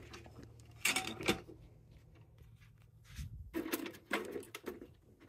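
Knocks and rattles from packing a rubber propane hose and burner into a steel ammo can filled with lava rocks. A couple of knocks come about a second in, then a run of clattering handling noises near the end.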